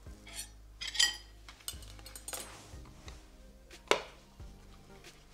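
Fork and knife clinking and scraping against a ceramic plate and the small nonstick bundt maker as a baked omelette is lifted out, with a loud clink about a second in. About four seconds in, the plastic lid of the Dash Mini Bundt Maker shuts with a sharp click.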